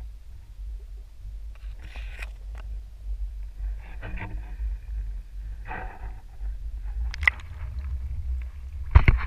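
Muffled low rumble of water moving around a camera held underwater, with scattered faint scrapes and clicks. Near the end come several sharp knocks of the camera being handled as it comes out of the water.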